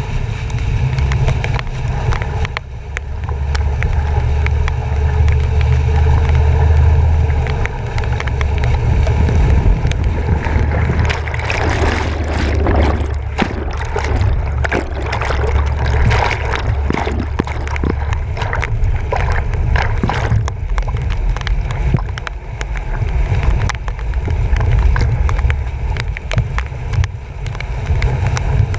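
A truck driving through flooded streets, heard from a front-bumper action camera: water splashing and sloshing against the bumper and camera housing over a steady low rumble. The splashing is heaviest through the middle stretch.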